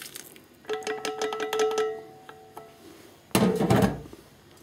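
Small metal cooking pot knocking and scraping against the rim of a ceramic bowl as the last noodles are shaken out, each knock leaving a ringing tone for about two seconds. A single loud thunk follows past the three-second mark as the pot or bowl is set down on the stove top.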